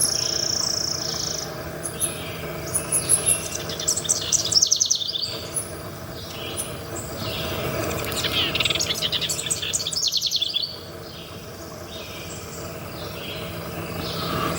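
Songbirds chirping in a repeated series of short high notes, with quick trills about four to five seconds in and again around eight to ten seconds. A steady high tone stops about a second and a half in.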